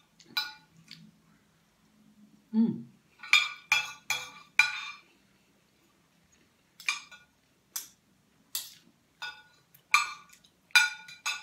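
Metal spoon and fork clinking and scraping on a ceramic plate while eating: a string of short, sharp clinks with a brief ring, coming at irregular intervals.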